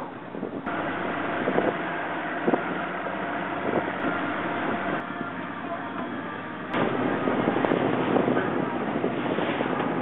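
Motorboat engine running underway, with wind buffeting the microphone. The sound gets abruptly louder about a second in and again past the six-second mark.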